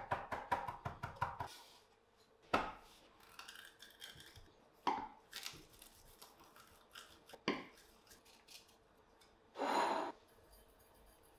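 Chef's knife rapidly chopping leafy greens on a wooden cutting board, about seven strokes a second, stopping about a second and a half in. Then three separate sharp knocks with softer clicks between as garlic cloves are crushed in a metal garlic press, and a brief half-second burst of noise near the end.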